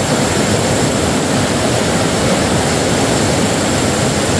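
Steady rush of running water from a rocky mountain stream.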